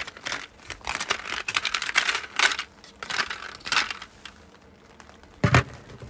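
Ice cubes clicking and clattering against each other and a plastic ice basket as they are shaken loose, with a loud thump about five and a half seconds in.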